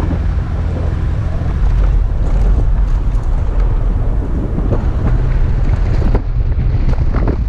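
Toyota FJ Cruiser's 4.0-litre V6 engine running steadily under load while driving through deep sand, with scattered knocks and rattles from the vehicle over the rough track.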